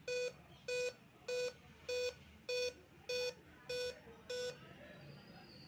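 Dell laptop's speaker beeping eight times in a row, evenly spaced short tones about 0.6 s apart, then stopping: a startup beep code. Dell uses the eight-beep code to signal a display (LCD) failure.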